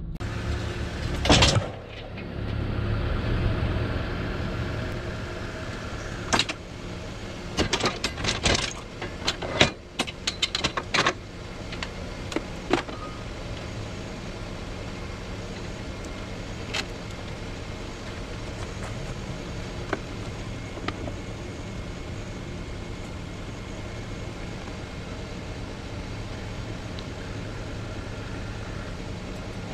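Pickup truck engine idling with a steady low hum. From about 6 to 11 seconds in comes a quick run of sharp metal clanks and clicks as a snow plow is coupled to the truck's front mount.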